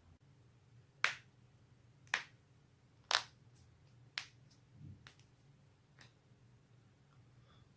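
Joints cracking: a series of sharp pops, four loud ones about a second apart followed by several fainter ones.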